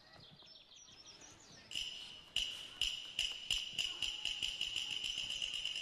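Open hand slapping along the arm in a steady rhythm, about two to three slaps a second, starting nearly two seconds in. A steady high-pitched ringing tone sounds behind the slaps.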